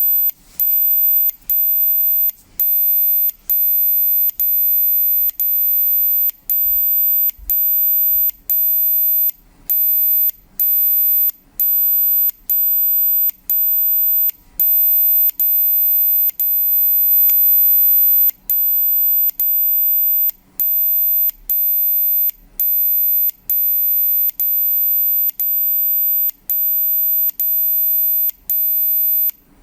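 High-pitched electronic tone keyed on and off about once a second, each beep filling most of the second with a short break before the next, and one unbroken stretch of about two seconds near the middle. It is a time-code signal for setting a radio-controlled clock: the once-a-second pulses carry the time, and the missed break marks the minute.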